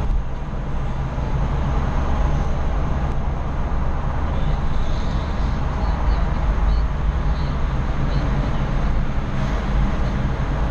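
Steady road and engine rumble heard from inside a car driving through a road tunnel.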